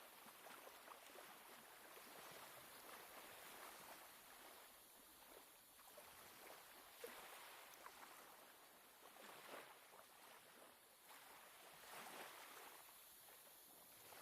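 Faint small sea waves lapping and washing against the shore, swelling and easing every couple of seconds, with small sharp splashes now and then.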